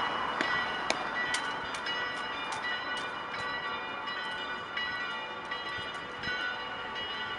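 Bells ringing: a run of strikes, about two a second, each leaving a lingering tone.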